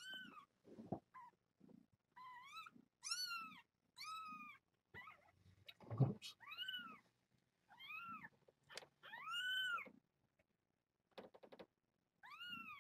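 Young kitten, about eleven days old, mewing over and over: about ten short, high-pitched cries, each rising and then falling in pitch. A soft thump comes about six seconds in.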